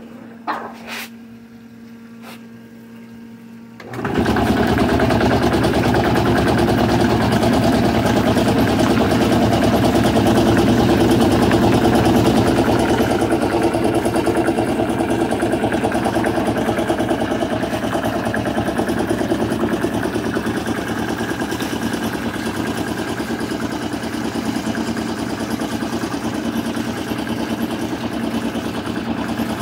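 A low hum with a few clicks, then about four seconds in an RP4 gold shaker table switches on and runs with a loud, steady, fast mechanical rattle.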